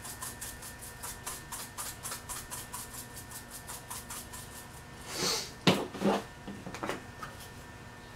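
Glass shaker of crushed red pepper flakes shaken over a pizza: a steady light rattle of about four or five shakes a second. A little after halfway it stops, and a short hiss and a few sharp clicks and knocks follow, one click much louder than the rest.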